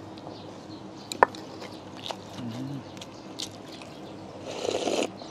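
Eating sounds at a meal: a sharp click about a second in and a few small clicks, a brief low hum of a voice, then a slurp from a bowl of kimchi stew near the end.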